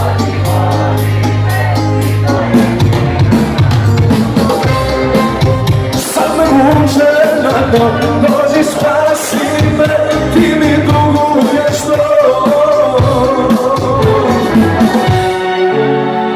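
A live pop band plays loudly through the club PA, with a male singer over keyboards and a driving beat. The heavy bass note of the opening couple of seconds gives way to a busier groove.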